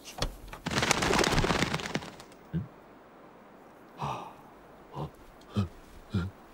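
Cartoon sound effects: a rushing burst of noise lasting over a second, then soft, evenly spaced low thumps about every half second, cartoon tiptoe footsteps.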